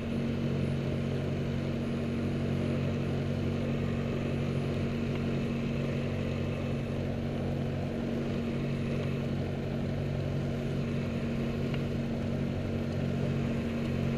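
Piper Archer II's four-cylinder Lycoming engine and propeller running steadily at low taxi power, heard from inside the cockpit as an even, low drone.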